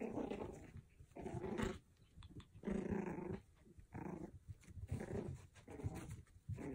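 Pomeranian puppy growling in play while it carries a plush toy in its mouth: about seven short growls in a row, each under a second.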